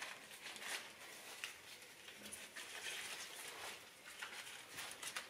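Faint rustling and scratching with scattered small clicks: a potted plant and its packaging being handled, with loose potting soil disturbed.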